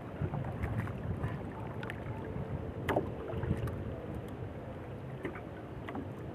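Water slapping against the hull of a small outrigger boat, with wind on the microphone and a few light knocks and clicks on the boat.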